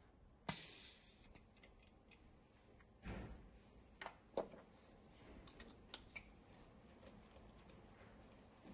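Faint clicks and knocks of a gloved hand moving a compression tester's hose and fittings on the cylinder head, with a few sharper knocks about half a second, three and four seconds in.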